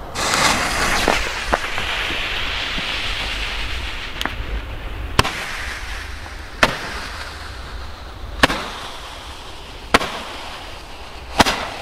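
Five-shot roman candle firing: the lit fuse and burning charge hiss steadily, and five sharp pops about every second and a half mark the stars being shot out.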